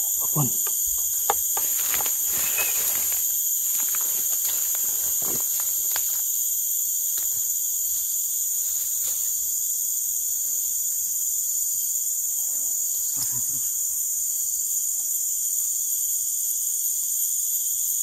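A steady, high-pitched chorus of forest insects buzzing in several pitch bands at once. A few clicks and rustles come in the first few seconds.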